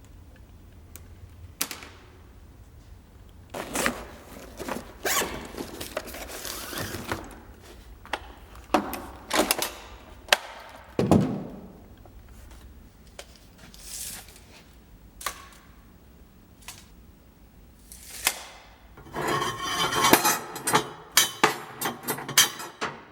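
Parts and tools being handled by hand: irregular knocks and scrapes, with a burst of close rattling clatter near the end.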